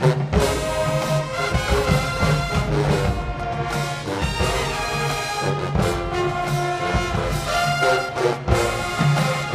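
High school marching band playing live, brass instruments to the fore over a repeating bass line, heard across an open stadium.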